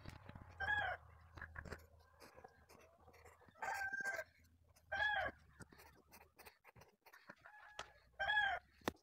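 A chicken calling in several short, arching squawks, over faint pencil scratching on paper; a sharp click near the end.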